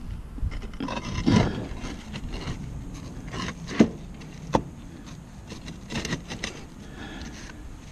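Roof tiles scraping and rubbing under a gloved hand, with scattered small clicks and two sharp knocks a little under a second apart near the middle.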